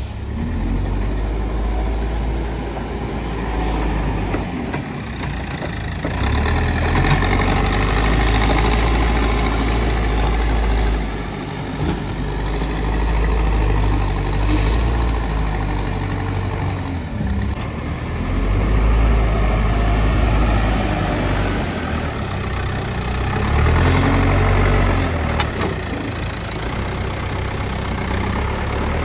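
Backhoe loader's diesel engine running under load, revving up and down in repeated waves as the machine works.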